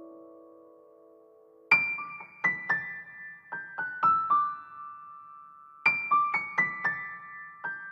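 Gentle background keyboard music. A held chord fades out, then a short run of single struck notes steps downward about two seconds in, and the same falling phrase begins again near the end.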